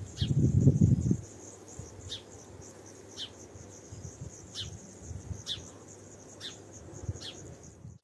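Crickets trilling steadily, with a bird giving short falling chirps about once a second. Low gusts of wind buffet the microphone in the first second.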